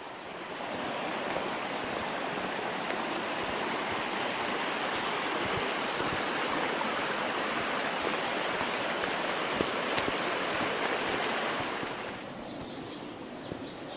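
Mountain stream rushing steadily over rocks. The rush drops away suddenly near the end.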